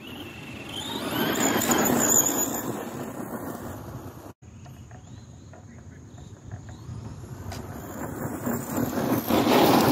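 Electric RC monster truck running over loose gravel: a high motor whine that climbs as it speeds up, with tyres crunching and scattering gravel. It swells twice, with a sudden break in between.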